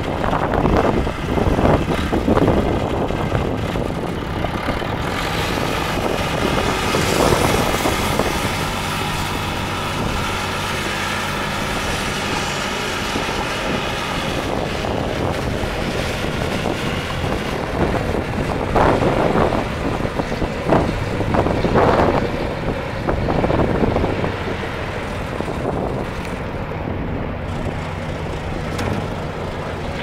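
1978 Case 580C loader backhoe's engine running steadily as the machine is driven and turned, with wind buffeting the microphone at times.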